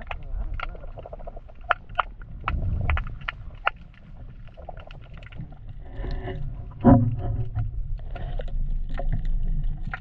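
Sound heard through a camera held underwater in a seawater rock pool: a low muffled rumble of moving water with scattered sharp clicks and ticks. A short muffled pitched sound, the loudest moment, comes about seven seconds in.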